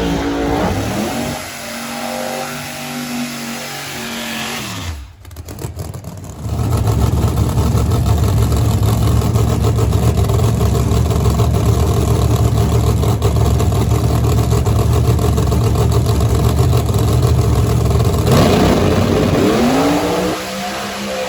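Drag race car engine revving, its pitch falling off about five seconds in, then after a short lull a loud, steady engine run for about twelve seconds, with the engine pitch sweeping up and down again near the end.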